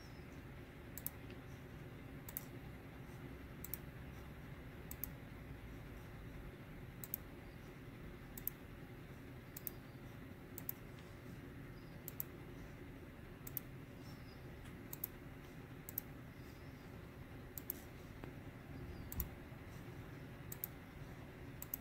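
Single sharp computer clicks, about one every second or so at uneven spacing, made while selecting options in on-screen dialogs. Under them runs a faint steady low hum of room noise.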